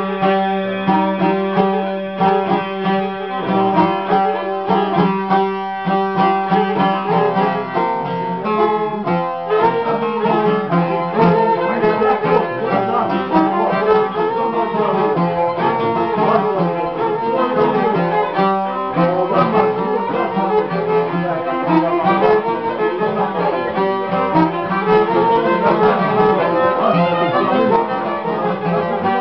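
Albanian folk instrumental played on plucked long-necked lutes (sharki). A held drone in the first few seconds gives way to quick runs of plucked notes, with no singing.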